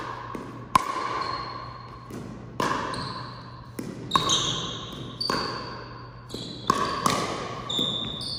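Doubles ball rally in a large echoing gym: sharp ball strikes every half second to a second, each ringing on in the hall, with short high squeaks in between.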